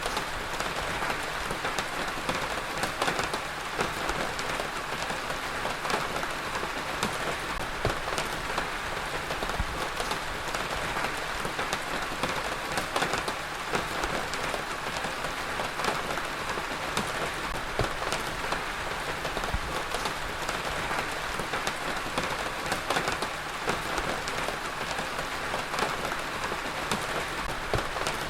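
Heavy rain falling steadily, an even hiss with many sharp individual drops pattering on a hard surface.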